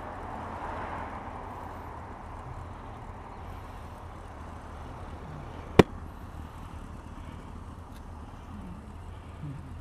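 Motorcycle engine running with a steady low rumble, and a single sharp click about six seconds in.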